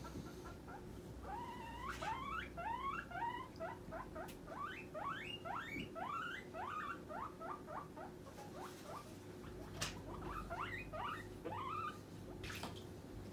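Abyssinian guinea pig wheeking: a long run of short, upward-sweeping squeals, a few a second, that pauses briefly past the middle and then starts again. It is the demand call of a hungry guinea pig begging for treats.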